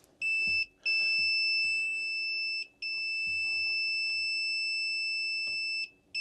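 A digital multimeter's continuity beeper gives a steady high-pitched tone while its probes touch the well pump motor's red and black winding leads, showing a closed circuit of about 11 ohms through the winding. The tone cuts out briefly three times when probe contact slips.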